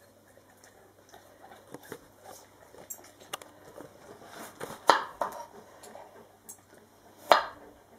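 Knife cutting an apple on a wooden chopping board: small crisp cuts and clicks, with two sharp knocks of the blade on the board, about five and seven seconds in.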